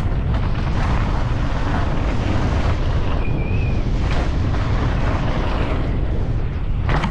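Steady wind rumble buffeting the rider-mounted camera microphone at speed down a dirt trail, mixed with rolling tyre noise on the dirt.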